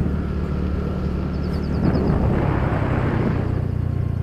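TVS NTorq 125 scooter's single-cylinder engine running steadily while riding, with wind and road noise over it.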